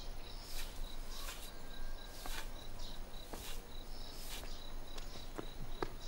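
A broom sweeping dirt and leaves across a packed-earth yard into a wooden dustpan, about five brisk swishing strokes roughly one a second. Crickets chirp steadily in the background.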